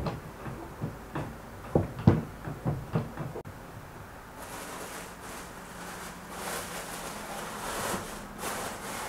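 Soft thumps of a fist kneading and punching dough in a plastic bowl, several in the first few seconds. Then a thin plastic bag crinkles and rustles as it is pulled over the bowl.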